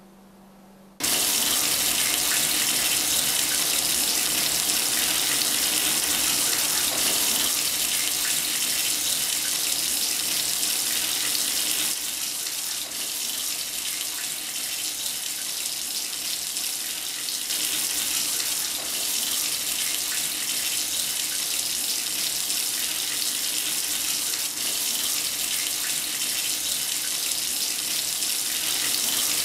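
Bathroom sink tap running hard, starting suddenly about a second in, as hands splash water onto a face under the stream.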